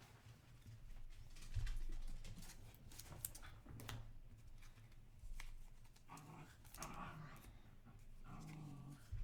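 Light clicks and rustles of trading cards being handled. Twice, about six and eight seconds in, a dog makes a short low sound.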